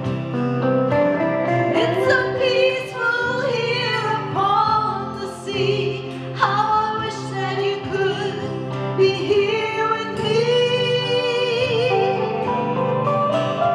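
A song: a woman singing a melody over acoustic guitar accompaniment.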